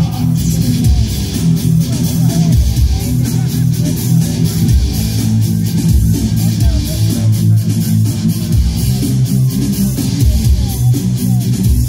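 Loud rock music over a concert PA, dominated by electric guitar and bass, running without a break.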